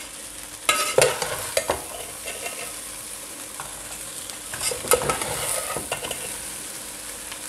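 Long metal spoon scraping and clinking against a stainless steel pot as rice is stirred and tossed through sautéed beans and peppers, over a steady sizzle of frying. The scraping comes in bursts about a second in and again around five seconds in.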